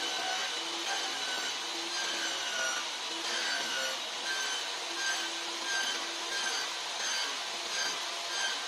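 Table saw cutting a row of shallow, closely spaced kerfs across a piece of wooden L-square stock. It makes a steady sawing noise, with a brief tone coming back every half second or so.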